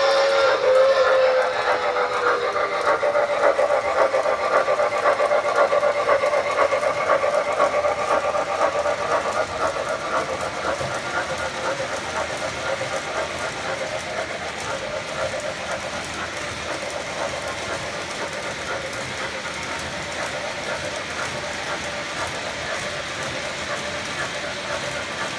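Model 4-6-2 steam locomotive pulling 22 passenger cars: a whistle that ends about a second in, then the train running with a rapid, even rhythmic clatter that slowly fades as it moves off.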